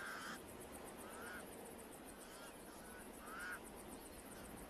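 Pied crows calling: a series of short, faint caws about a second apart.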